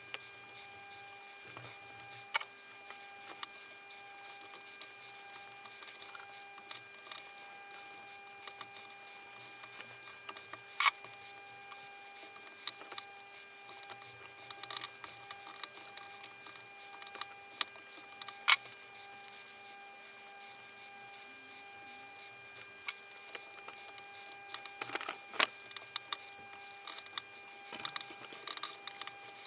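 Scattered sharp clicks and taps of tools and engine parts being handled during a motorcycle engine teardown, over a steady high-pitched electrical hum. The loudest clicks fall about 2, 11 and 18 seconds in, with a busier run of small taps near the end.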